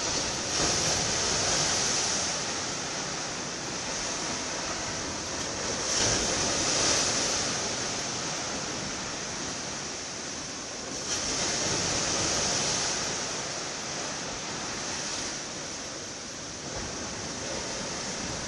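Sea surf: waves washing in a steady hiss that surges louder every five or six seconds as each wave breaks.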